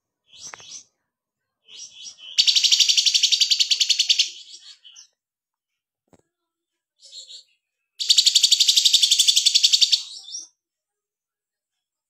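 Caged kinoy songbird singing: short high chirps and two loud, very rapid buzzing trills of about two seconds each, several seconds apart.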